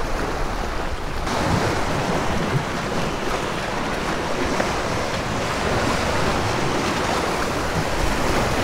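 Surf washing and breaking against granite jetty rocks, a steady rush of water that grows a little louder about a second in, with wind buffeting the microphone.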